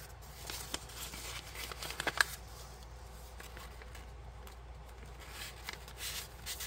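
Paper rustling and crinkling as a folded paper printout is handled and refolded, with a few short crackles, the sharpest about two seconds in and more near the end.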